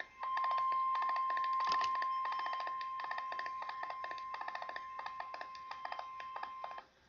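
NOAA Weather Radio warning alarm tone: a single steady high beep, sounding the alert before a severe thunderstorm warning is read. It is overlaid with rapid crackling and cuts off abruptly near the end.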